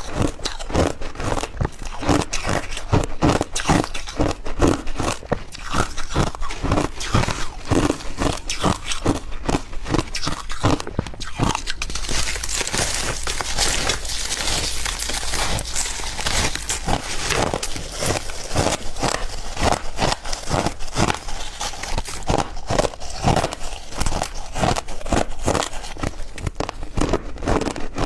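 Crumbled ice being bitten and chewed close to the microphone: a continuous run of crunches, a few each second, with a denser, hissier stretch around the middle.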